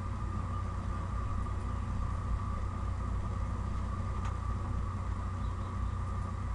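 Steady low machine hum with a faint whine above it, unchanging throughout, and a single faint click about four seconds in.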